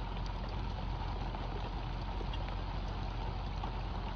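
Steady rain falling on the river surface and the boat, a constant hiss with a low, even rumble underneath.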